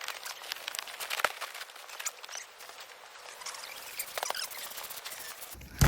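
Rustling and clicking of a small tent being put up, many short crackles, with one loud thump near the end.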